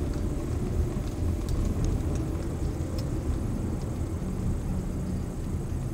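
Steady engine and road noise of a car being driven, heard from inside the cabin.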